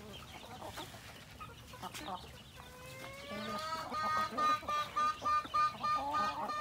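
Filipino native chickens clucking while feeding; about halfway through, one bird calls with a slowly rising note that breaks into a run of about nine quick repeated notes, roughly three a second, the loudest sound here.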